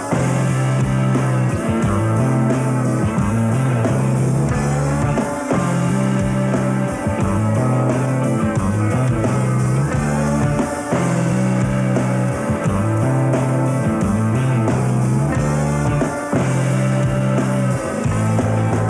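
Instrumental stretch of a rock song: guitar over a bass line that repeats the same pattern of held low notes, with no singing.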